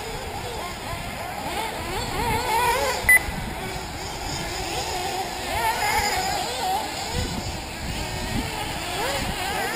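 Several 1/8-scale nitro RC buggy engines whining, their pitch rising and falling as they rev and back off around the track. A short high beep sounds about three seconds in.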